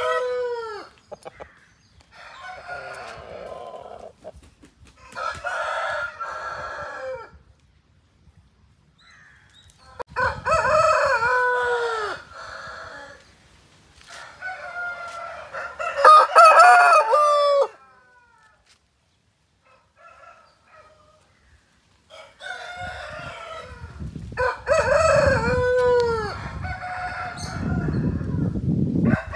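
Aseel roosters crowing, about six crows one after another with short pauses between. The louder crows end in a falling, drawn-out note.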